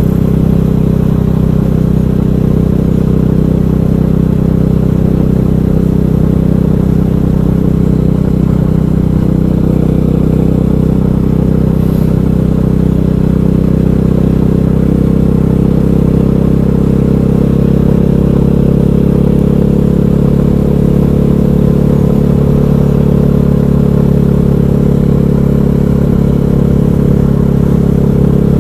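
KTM 500 EXC's single-cylinder four-stroke engine running at a steady cruising speed under way, an even drone that holds nearly the same pitch throughout.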